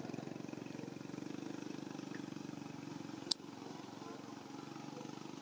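An engine running steadily with a fast, even pulse, with one sharp click a little past three seconds in.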